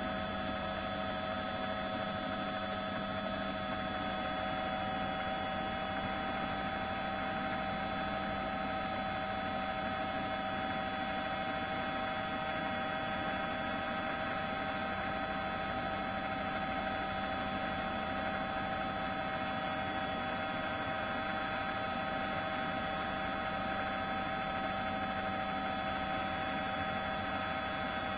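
Steady drone of a turbine news helicopter heard from on board, a constant engine hum with several fixed whining tones over a noise bed.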